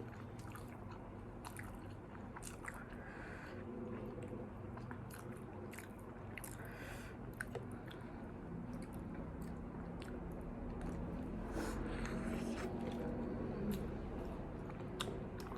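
Close-up eating sounds: people chewing and biting McDonald's fast food, with scattered small crunches and clicks.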